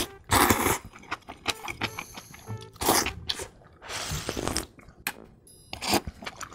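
Close-miked slurping of thick noodles: four sharp sucking slurps, the longest about four seconds in as sauce is sucked from the rim of a wooden plate, with small wet chewing clicks in between. Faint background music runs underneath.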